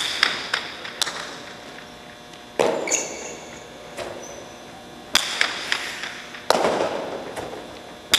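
Jai alai pelota striking the fronton's wall and floor during a rally: a string of sharp cracks, the loudest coming every one to three seconds, each with a long echo in the big hall.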